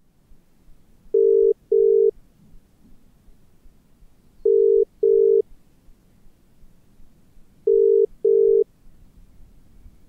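Mobile phone ringback tone on a call ringing out unanswered, heard through the phone's speaker: the British double ring, three pairs of short steady tones about three seconds apart.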